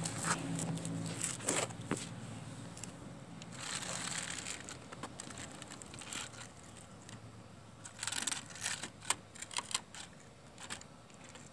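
Small LEGO toy truck pushed by hand across rough concrete: gritty rolling and scraping of its plastic wheels, with a cluster of sharp plastic clicks and knocks about eight to ten seconds in.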